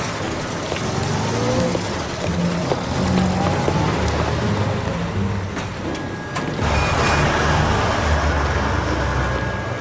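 A motor vehicle's engine running, getting louder and rougher about two-thirds of the way in.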